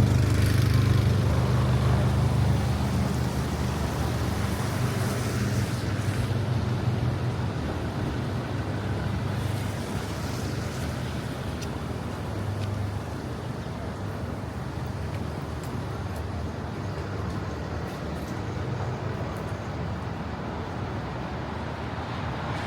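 City street traffic: a nearby motor vehicle's engine hums low and steady, loudest at the start and fading away after about six seconds, over a constant wash of traffic noise.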